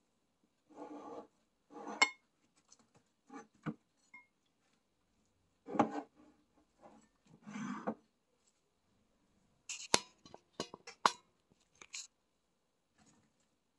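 Dishes being handled at a table: short rustles of plastic cling film over a takeout bowl and a plate being moved and set down, then a quick run of sharp clinks and taps about ten seconds in.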